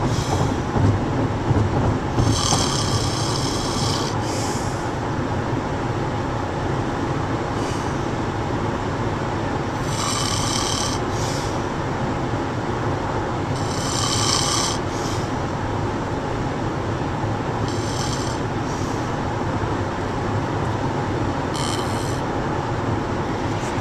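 An older man snoring, one snore about every four seconds, the first drawn out longest, over the steady low rumble of a moving car's cabin.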